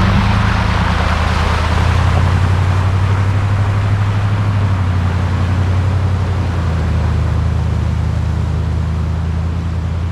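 A motor vehicle's engine running steadily with a low, even drone.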